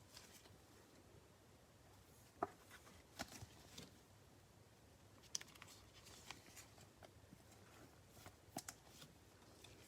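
Near silence with faint, scattered clicks and taps of trading cards being handled and sorted on a table, about nine light ticks spread irregularly.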